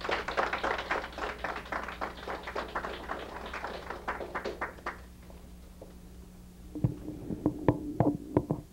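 Small audience clapping for about five seconds and fading out. Near the end come a few separate knocks and thumps.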